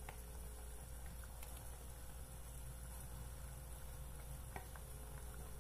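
Cooked rotini being tipped and pushed with a wooden spoon from a bowl into a pot of cream sauce: faint soft wet plops and a few light knocks, over a steady low hum.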